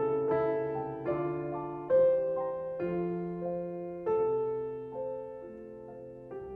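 Background piano music: a slow, gentle melody of single struck notes, each one fading before the next.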